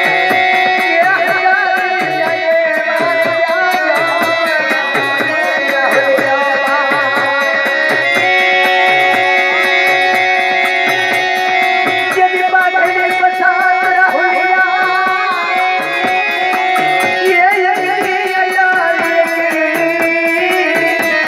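Gujarati dakla folk music: held drone notes under a wavering melody line, over a steady drum beat about twice a second.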